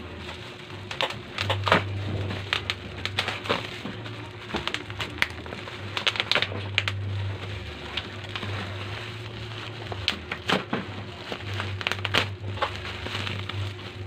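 Plastic bubble-wrap packaging being pulled apart and crumpled by hand: crinkling and crackling with many sharp clicks, under a low hum that comes and goes.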